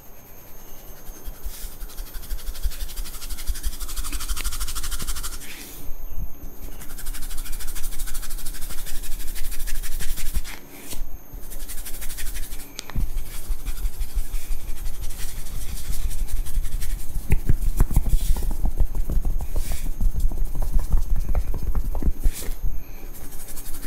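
Hands rubbing and patting a man's head and scalp in a barber's head massage: a fast, steady rhythm of soft strokes, several a second, with scratchy rubbing through the hair at times.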